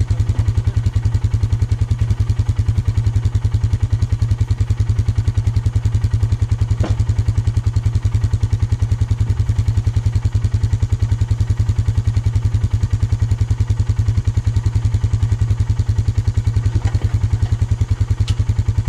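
Engine of the vehicle hitched to the trailer idling steadily with a fast, even pulse. A few knocks sound as old tires are tossed into the wooden trailer bed.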